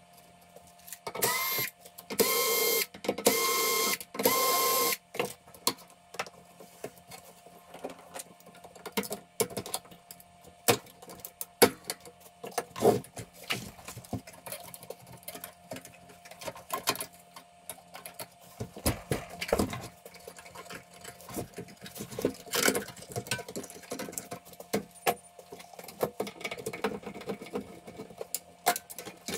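A handheld power screwdriver runs in three short bursts a few seconds in, the first spinning up with a rising whine, as it backs out the screws holding the inverter's power board. After that come many scattered clicks and knocks of screws and metal and plastic parts being handled while the board is removed.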